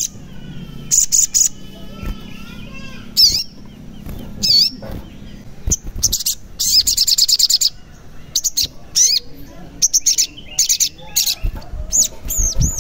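Sunbird (sogon) singing: a string of sharp, high chirps and short quick trills, with a fast rattling run of notes about six and a half seconds in.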